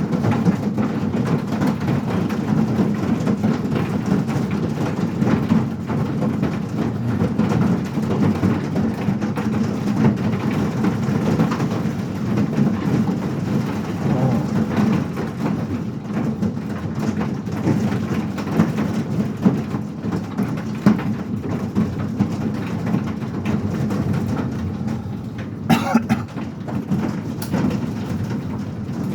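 Small hail and rain pelting down steadily in a dense patter, with a few sharper hits near the end.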